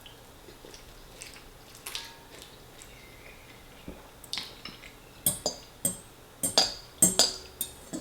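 Cutlery clinking against a dish while eating spaghetti: a few faint ticks at first, then a quick run of about ten sharp clinks starting about four seconds in.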